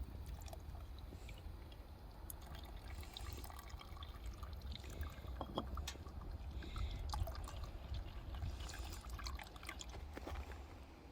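Liquid pouring and dripping, with scattered small clicks and knocks, over a steady low rumble.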